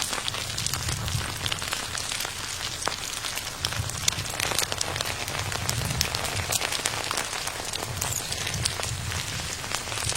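Rain falling steadily on a surface, with many small drop ticks over a low, uneven rumble.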